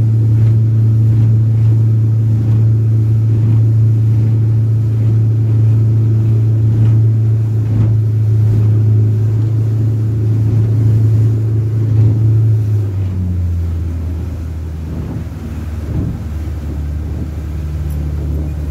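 Motorboat engine droning steadily under way, heard from on board. About two-thirds of the way through, the revs drop and the drone settles to a lower pitch.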